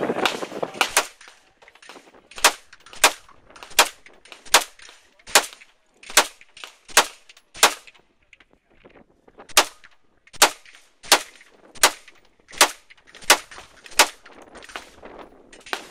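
Semi-automatic rifle shots fired at a steady pace, a little under a second apart, each followed by a short echo. There is a pause of about two seconds partway through before firing resumes.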